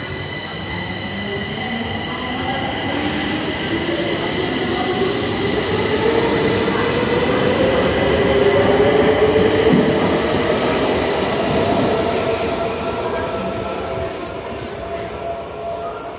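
Stockholm metro train of C20 stock pulling out of the station. Its motors give a whine that rises steadily in pitch as it accelerates. It is loudest about halfway through, then fades as the last cars leave.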